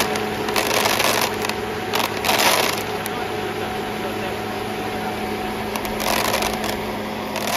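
Chickpea-processing machine running: a steady electric hum under a continuous rushing noise that swells several times, in the first three seconds and again about six seconds in.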